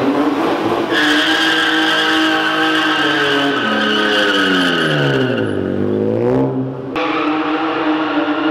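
BMW E36 coupe doing a burnout: the engine is held at high revs and the rear tyres squeal, the squeal starting about a second in. About two-thirds of the way through the revs drop and climb again, and after a sudden break the engine and tyre squeal carry on.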